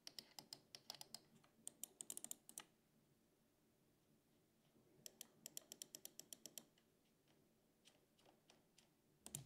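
Faint, rapid clicking of mechanical computer switches in two runs: one for about two and a half seconds at the start, another from about five to six and a half seconds in.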